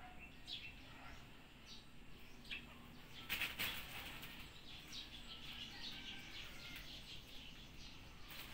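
Plush electric flopping fish toy flapping and rustling as a kitten grapples and bites it, in soft scuffles with a louder burst of flapping a little over three seconds in.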